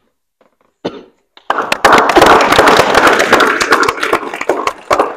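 A room of people applauding, breaking out suddenly about a second and a half in as a dense run of hand claps.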